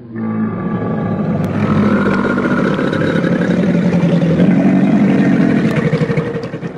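Tylosaurus creature sound effect: one long, rough, low growling call of about seven seconds that starts abruptly, holds steady and fades out near the end.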